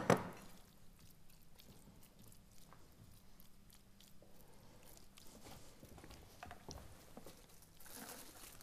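Faint wet squishing and scraping as a wooden spatula spreads a moist spinach filling in a glass baking dish, with a couple of sharp clicks at the very start.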